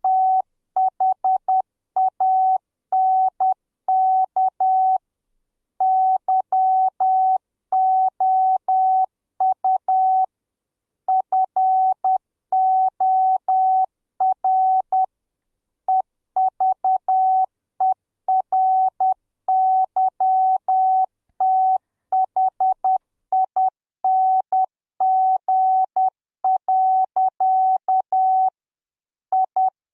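Morse code sent as a single steady beep tone, keyed in short dots and longer dashes, with short gaps between letters and longer pauses between words.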